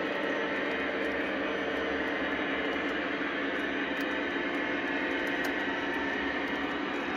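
Lionel O-gauge autorack cars rolling past on the track with a steady rolling roar of metal wheels on rail, and faint scattered clicks over the rail joints.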